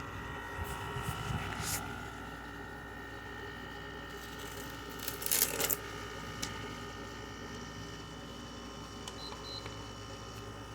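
LG 6,000 BTU window air conditioner running in cool mode with its compressor and fan on: a steady hum with a few steady high tones. Light clicks come in the first couple of seconds, and a short, louder cluster of clicks comes about five seconds in.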